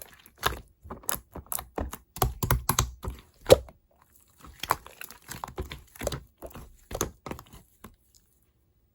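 Quick, irregular crisp clicks and crackles from a chocolate snack and its packaging being handled. They stop about 8 seconds in.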